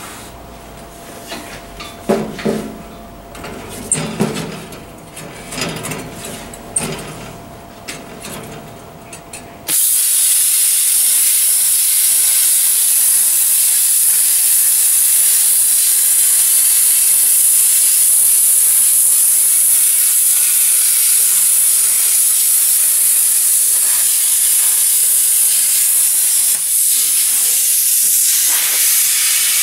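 Plasma cutter torch. A few seconds of knocks and handling, then about ten seconds in it fires with a sudden loud, steady, high-pitched hiss of compressed air and arc as it cuts a circle in 1/8 inch steel plate. It keeps hissing even after the cut is through.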